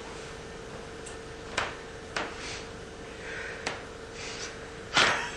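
A few sharp knocks and clicks over a steady hum, the loudest knock near the end.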